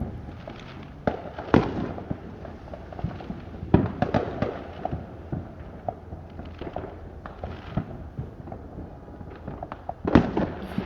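Consumer fireworks going off: irregular loud bangs with crackling in between. A cluster of the loudest bangs comes near the end.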